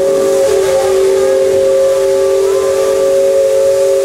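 Steam whistle of a paddle-wheel riverboat blowing one long, loud, steady chord of a few tones over a hiss of steam, starting suddenly.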